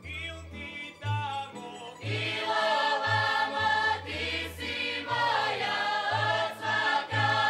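Mixed folk choir of men and women singing together in full voice, coming in about two seconds in over an instrumental accompaniment with a rhythmic bass line.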